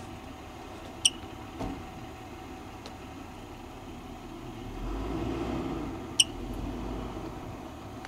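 A marmot gives two short, sharp, high-pitched chirps about five seconds apart. A low rumble swells for a few seconds between them.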